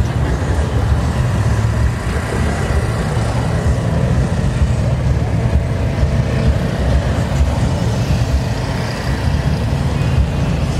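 Steady low rumble of idling car engines.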